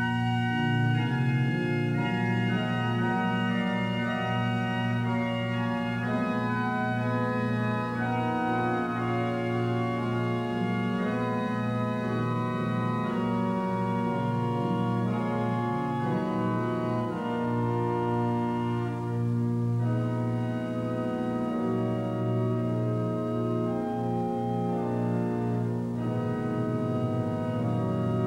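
Organ music: slow sustained chords over a steady held bass note.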